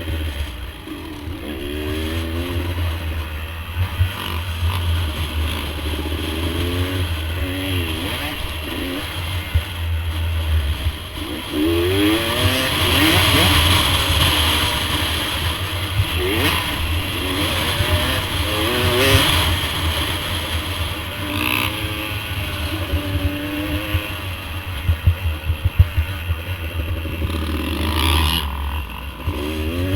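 Off-road motorcycle engine running and revving up and down over and over while riding, with a steady low rumble underneath.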